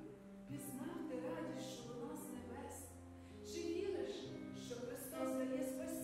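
Soft live band music, held chords over long sustained bass notes, under a woman's voice reciting a poem into a microphone.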